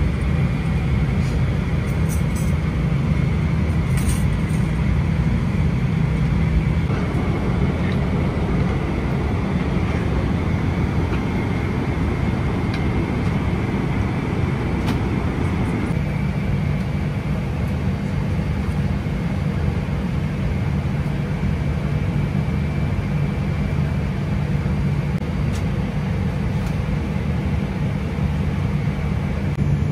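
Steady low rumble of a Boeing 777-300ER's engines and airflow heard inside the cabin, with a faint steady whine and a few light clicks.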